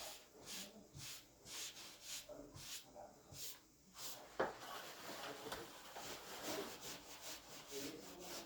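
Back-and-forth rubbing strokes of a hand tool on a ceiling repair patch: about two strokes a second at first, then quicker, closer strokes after a sharp click about four seconds in.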